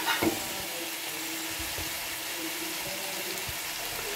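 Sliced onions and tomatoes frying in oil in a metal pot, a steady hiss. A spoon scrapes through them a couple of times at the very start.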